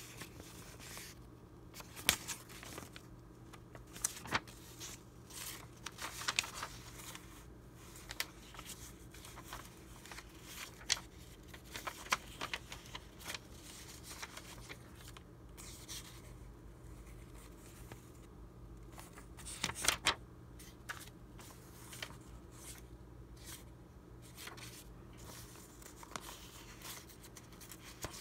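Vintage paper documents handled by hand: dry rustles, slides and crisp snaps of old paper sheets being picked up, turned over and leafed through, irregular, with louder crinkles about two, four, eleven and twenty seconds in.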